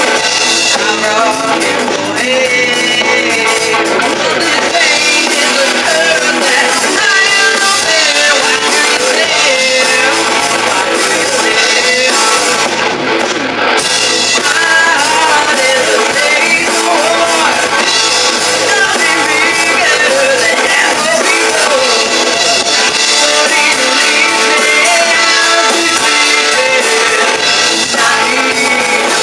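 Live rock band playing: electric guitar, bass guitar and drum kit, with a woman singing lead.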